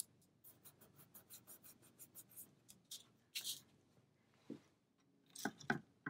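Fingers rubbing and pressing a paper cutout down onto freshly glued paper, a quick run of faint scratchy strokes, followed by a couple of paper swishes about halfway through as the sheet is shifted on the table.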